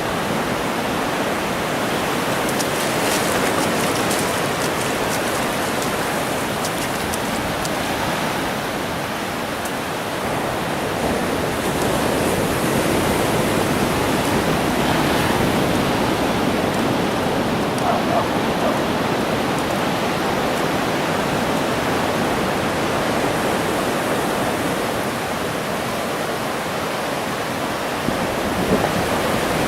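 Steady rushing wash of ocean surf breaking on a beach.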